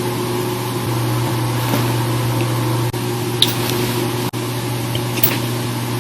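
A person's silent hiccups: soft, brief throat clicks about halfway through and again near the end, over a steady low hum.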